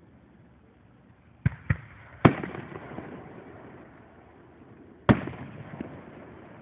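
Fireworks aerial shells bursting with sharp bangs: three close together about a second and a half in, the third the loudest, then another about five seconds in. Each bang trails off in an echo.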